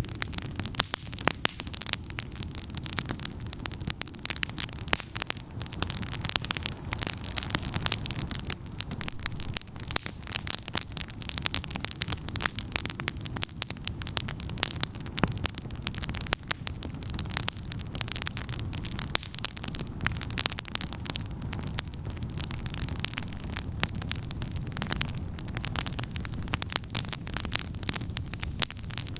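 Wood campfire burning, with dense, irregular crackling and popping of the wood over a steady low rumble.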